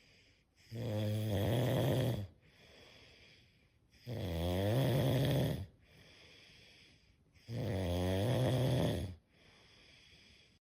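A person snoring: three loud, long snores about three and a half seconds apart, with quieter breathing between them.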